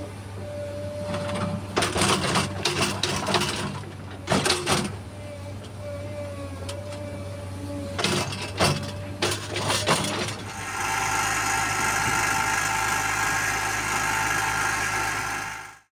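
Komatsu PC210LC-8 crawler excavator running at idle with a low steady hum, broken by several short bursts of clattering clunks. About eleven seconds in, a steady, brighter sound of many held tones takes over and cuts off abruptly.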